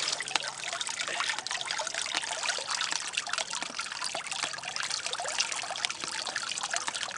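Water trickling steadily into a goldfish pond, a continuous patter of many small splashes on the surface.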